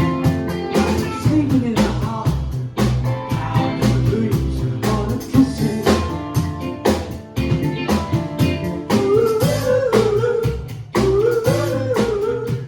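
Live band music with a steady drum beat and bass; a lead vocal comes in about nine seconds in.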